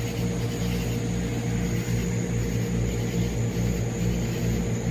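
Steady low droning hum of a distant aircraft engine, with a thin steady high tone above it.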